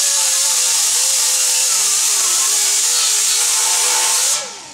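Small handheld disc grinder running against sheet steel, a loud hiss with a whine that wavers in pitch as the load changes; it is shut off near the end and the whine drops as it winds down.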